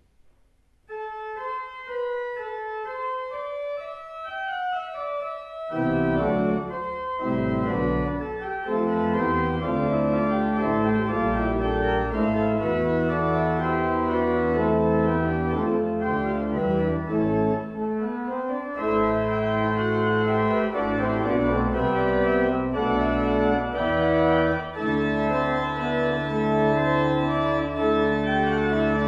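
Lewis pipe organ: a single melody line starts about a second in and climbs, then the full organ with deep pedal bass comes in about six seconds in and plays on loudly.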